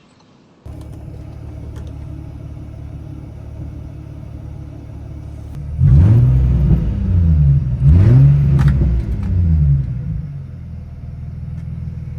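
Infiniti G35's VQ35DE V6 engine idling, then revved twice around the middle, the pitch climbing and falling each time, before settling back to idle.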